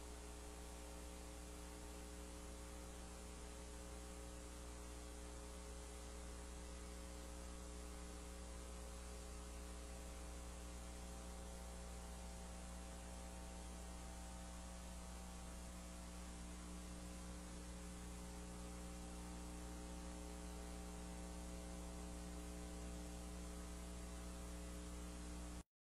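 Faint steady electrical mains hum with a row of overtones over a light hiss. It cuts off abruptly near the end.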